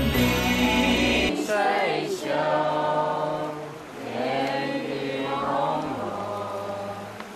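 Music cuts off just over a second in. Slow Buddhist chanting follows: several voices hold long drawn-out notes, phrase after phrase.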